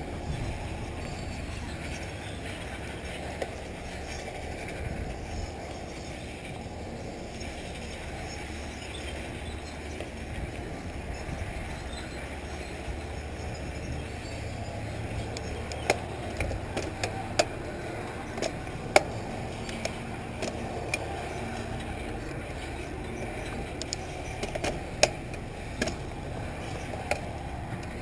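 Corratec mountain bike rolling over a dirt and gravel track: a steady rumble of tyres and wind, with sharp clicks and rattles from about halfway on as it rides over loose stones.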